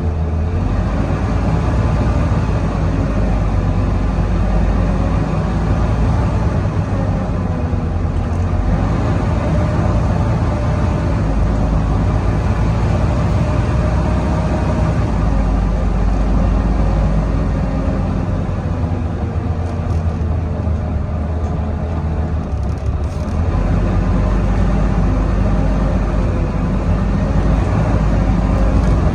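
Volvo B9TL bus's straight-six diesel driven hard, a steady engine rumble with the high whistling 'hoover' whine over it. The engine eases off about 18 seconds in and pulls hard again about 23 seconds in.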